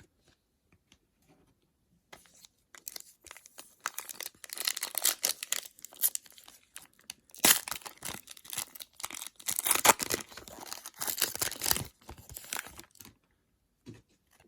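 A trading card pack wrapper being torn open and crinkled by hand: a run of crackling, tearing bursts lasting about ten seconds, loudest in the middle, as the next pack is opened.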